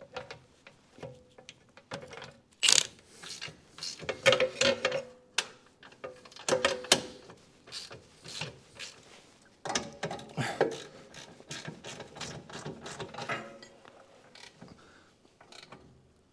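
Hand ratchet wrench clicking in irregular runs as a nut is fastened onto the lower control arm bolt, with metallic clinks of tools and parts, some ringing briefly.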